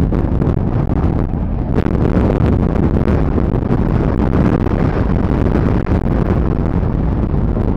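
Jet airliner engines running, with wind rumbling on the microphone; the higher engine sound swells about two seconds in and eases toward the end.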